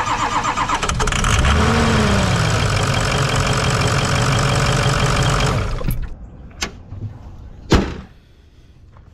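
Ford 6.0 Power Stroke V8 turbo-diesel running with a steady clatter, then stopping abruptly about six seconds in. A couple of light knocks follow, then a single loud bang near the end as the hood is shut.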